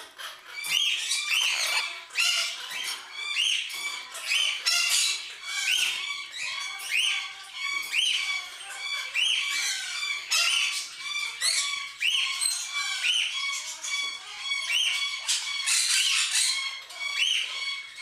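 Conures squawking and chattering without a break: harsh, rising-and-falling calls repeat about once or twice a second, with quicker chatter between them.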